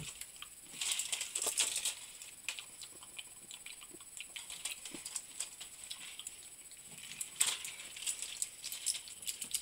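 Small plastic candy wrapper crinkling and clicking as it is handled and torn open by hand, in crackly spells about a second in and again near the end, with scattered light ticks between.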